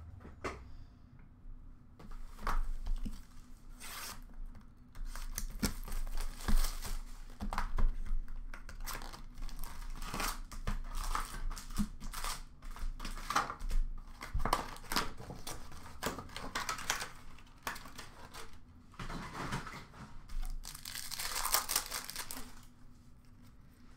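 2023-24 Upper Deck Series 1 hockey card packs being ripped open, the wrappers tearing and crinkling and the cards handled, in a busy run of short rustles and clicks. A longer tear comes near the end.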